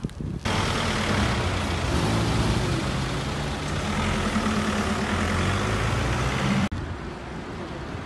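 A motor vehicle's engine running close by, with road noise. It starts abruptly about half a second in and cuts off suddenly near the end.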